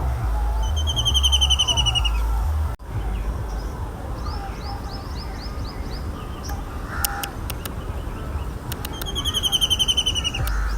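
White-throated kingfisher giving its rattling, laughing call: two rapid trills of high, slightly falling notes, the first about half a second in and the second about nine seconds in. Other small birds chirp faintly, over a low rumble.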